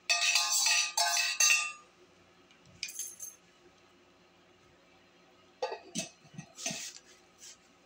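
Metal spoon clinking against a metal cup and dish: a quick cluster of loud ringing clinks, a single lighter clink about three seconds in, then a few soft clicks and scrapes near the end.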